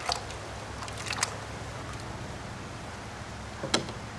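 Chopped potatoes being added to a soup pot: a few light clicks and knocks, at the start, about a second in and near the end, over a steady low hum.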